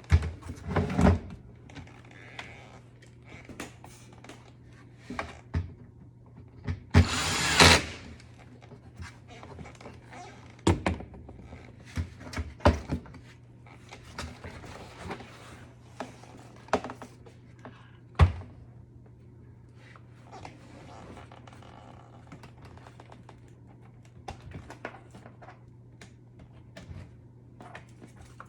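Scattered clicks, knocks and handling noises of tools and dishwasher panel parts being worked on, with a louder noisy burst lasting about a second roughly seven seconds in. A low steady hum runs underneath.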